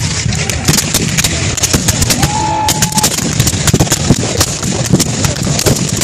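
Massed black-powder musket fire from a reenactors' firing line: many muskets firing blanks in quick, irregular succession, several shots a second, overlapping into a continuous crackle. A short held tone sounds briefly about two seconds in.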